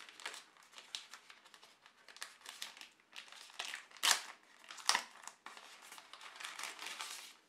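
Thin plastic wrapping crinkling and rustling as hands handle it and peel it off a phone flip cover, with two sharper crackles about four and five seconds in.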